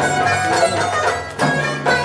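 Chitrali folk music: long-necked Chitrali sitars plucked in a running melody over a steady beat from a damama drum struck with sticks.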